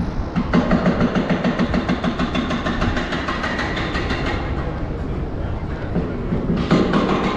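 Light-rail train passing at street level, its wheels clacking in a steady rhythm.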